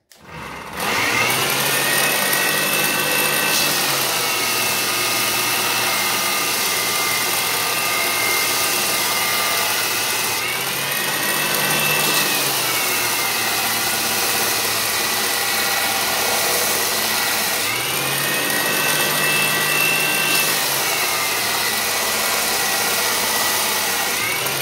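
Compact 2x42 belt grinder driven by a 1 1/3 HP servo motor, switched on and grinding a motor face plate flat on the belt. The motor whine comes up to speed within the first second. Its pitch sags each time the plate is pressed against the belt and rises again when the plate is lifted off, twice and once more near the end.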